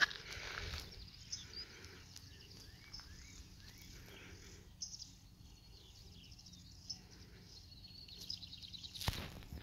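Small birds chirping, with quick high trills around five seconds in and again near the end, over faint steady outdoor background noise. A few sharp knocks come near the end.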